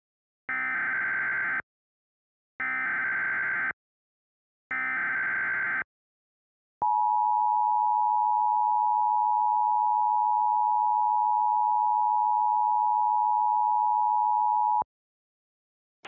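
Emergency Alert System tones: three bursts of the SAME digital header, each about a second of harsh buzzing data tones, followed by the EAS attention signal, a steady two-tone alarm (853 and 960 Hz together) held for about eight seconds and cut off abruptly.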